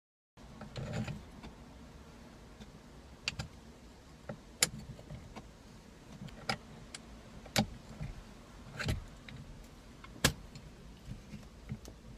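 Metal clicks and clinks of a 10 mm Allen wrench working in a steering wheel bolt as it is unscrewed by hand, irregular and sharp, about one every second. There is a dull knock about a second in.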